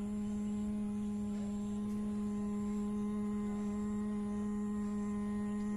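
A steady drone held on one unchanging pitch, with even overtones, in the manner of background meditation music.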